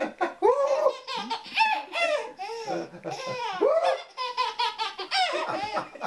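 A baby laughing, a long run of short, high-pitched belly laughs and giggles one after another.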